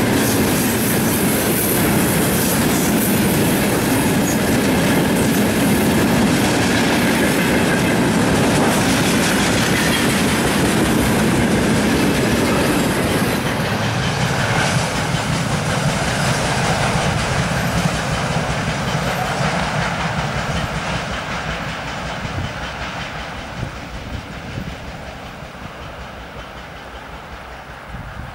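Freight train of rail tank cars rolling past close by, wheels clacking on the rails. The last car goes by about halfway through, and the sound then fades steadily as the train moves away.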